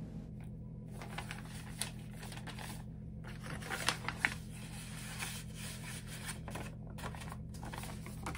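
A sheet of paper rustling and crinkling as it is handled, in irregular bursts, with a few sharper crinkles about four seconds in, over a steady low hum.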